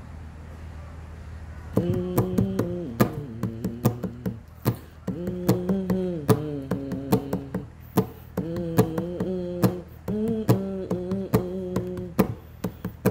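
A person humming a grunge-rock melody in four repeated phrases, starting about two seconds in, with sharp taps keeping the beat throughout.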